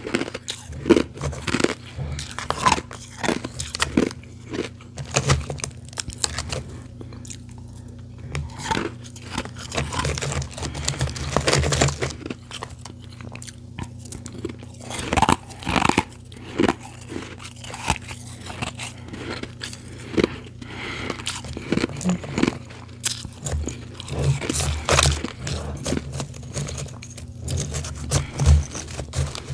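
Close-up crunching and chewing of refrozen powdery ice, in many irregular crisp bites. Near the end, a hand digs through ice chunks in a plastic tub.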